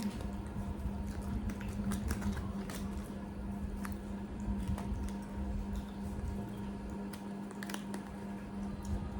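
Food and its wrapping being handled and broken apart, with scattered soft clicks and crackles over a steady low hum.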